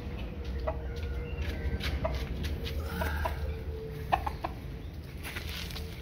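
Rooster clucking in short calls, a few at a time, over a steady low rumble.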